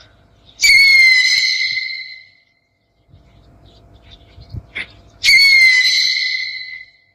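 An owl giving two long whistled calls, about four and a half seconds apart; each drops quickly in pitch at the start, then holds one level tone and fades out over about a second and a half.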